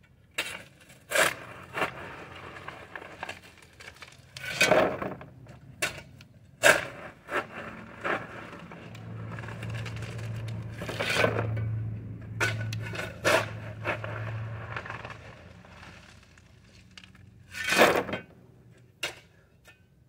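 Shovel scraping and crunching into a pile of landscaping rock as it is loaded and dumped, a sharp stroke every one to three seconds.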